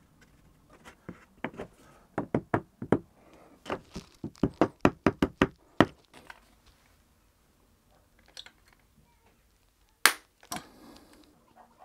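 Hammer knocking on a freshly glued wooden batten upright on a wall to tap it straight onto a laser line: a run of quick, sharp knocks over the first six seconds, then after a pause two louder knocks near the end.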